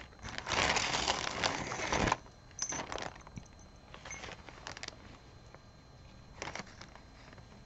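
Costume jewelry being handled: metal pieces jangle and rustle together for about two seconds, then a few scattered light clicks and clinks follow.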